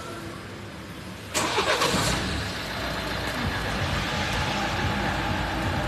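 A motor vehicle's engine running, coming in suddenly about a second and a half in and then staying loud and steady.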